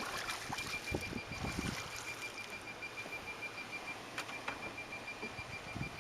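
Boat ambience: a steady wash of wind and water noise with a few scattered knocks, and a thin, steady high tone that stops about four seconds in.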